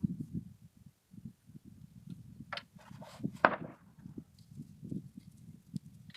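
Handling noises while reloading a 20-gauge shotgun's 209 muzzleloader adapter: low scuffing and knocks throughout, a click about two and a half seconds in, and a louder sharp clack a second later.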